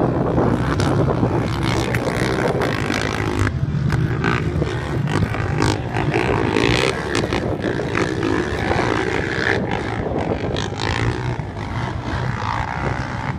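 Racing quad (ATV) engines running at speed around a dirt track, a steady engine drone.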